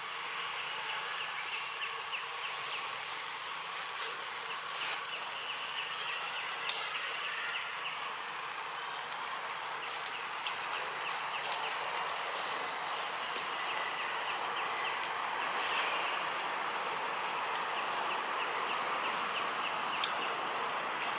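Forest insects buzzing steadily, with a continuous high-pitched drone and a faint fast pulsing chirp beneath it, over a soft rushing background. A few faint sharp clicks stand out, the clearest about seven seconds in and near the end.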